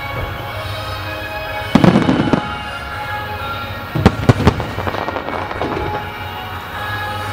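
Fireworks bursting over music: a cluster of loud booms about two seconds in and another cluster of sharp bangs about four seconds in, with the music running underneath throughout.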